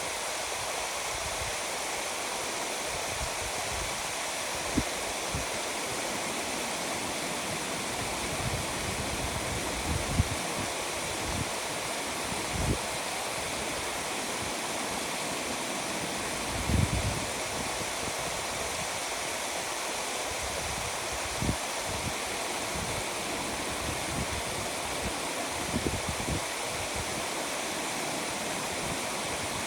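Small rural stream flowing, a steady rushing of water. A few brief low thumps break through now and then.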